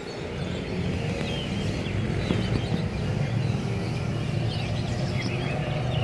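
A steady low rumble with faint, scattered bird chirps above it.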